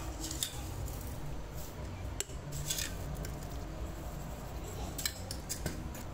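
Scattered light clicks and taps of kitchen containers and a glass bowl as salt and ground black pepper are added to a soy-sauce and ketchup mixture, over a low steady background hum.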